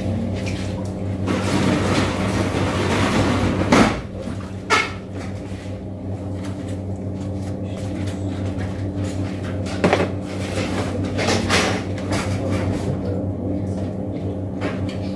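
Steady low machine hum, with a few sharp knocks and clicks of things being handled, the loudest about four seconds in and again near ten seconds.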